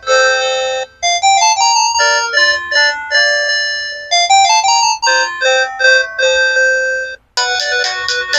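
Sanex SC-7090i mobile phone playing its built-in polyphonic ringtones through its loudspeaker on its CMX sound synthesizer. One tune stops about a second in, then a melody of quick stepping synth notes plays, and after a brief break near the end a busier tune begins.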